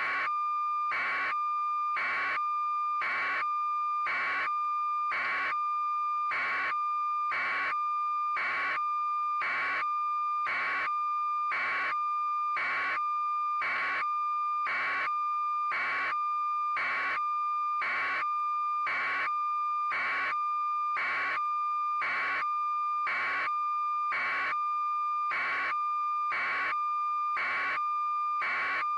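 A steady high electronic tone, held without change, with a rhythmic pulse beating about one and a half times a second over it at a perfectly even level.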